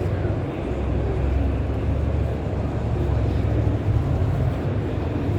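Steady low rumble and background noise of a busy indoor exhibition hall, with no distinct events.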